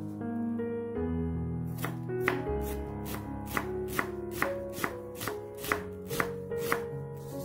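Chef's knife chopping an onion on a wooden cutting board: about a dozen even chops, two to three a second, starting about two seconds in. Soft piano-like background music plays under them.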